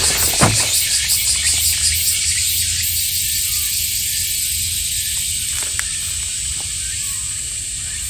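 Cicadas droning loudly in a high-pitched chorus, pulsing for the first few seconds and then steady, with a brief bump about half a second in.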